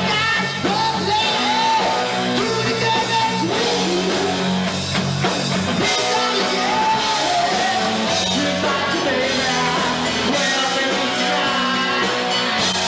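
Live rock band playing: electric guitars, bass guitar and drum kit under a male lead singer singing into a microphone, the voice gliding between held notes.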